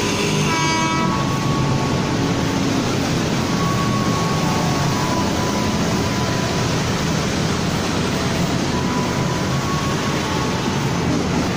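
Ex-JR East 205 series electric commuter train approaching, heard as a steady, unbroken noise, with one short horn toot about half a second in.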